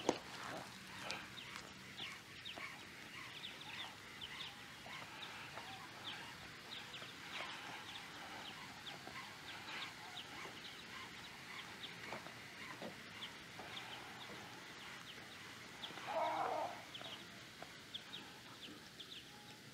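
Small waves lapping and clucking against a plastic fishing kayak's hull: a stream of soft, irregular ticks and slaps, with a short, louder, lower splash or knock about sixteen seconds in.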